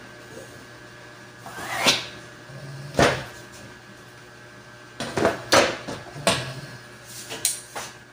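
Metal rulers being slid, lifted and set down on a wooden worktable over fabric: a scraping swish about two seconds in, then a series of sharp knocks and clatters, with fabric rustling.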